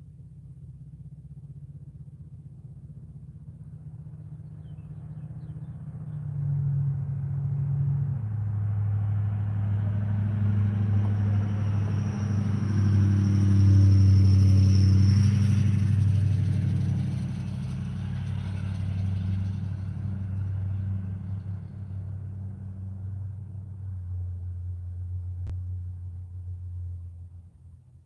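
Pickup truck driving past on the road, its engine hum and tyre noise growing louder, loudest about halfway through, then fading away.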